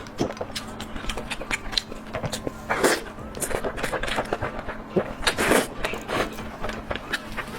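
Close-miked eating sounds of a person chewing Korean food, with quick smacking clicks and louder wet bursts about three seconds in and again around five and a half seconds.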